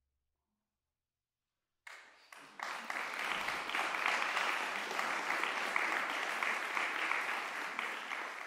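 Near silence, then an audience breaks into applause about two seconds in, at the close of a brass trio piece. The clapping holds steady and begins to thin near the end.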